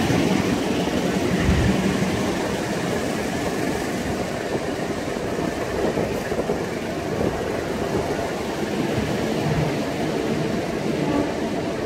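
KAI long-distance passenger train's stainless-steel coaches rolling slowly past along the platform track, a steady rumble of wheels on rails that slowly gets a little quieter.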